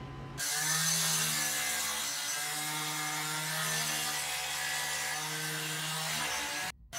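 Handheld power saw with a diamond blade cutting a chase into a brick wall: a steady, even machine tone over the grinding noise of the blade in the brick. It breaks off for a moment near the end, then carries on.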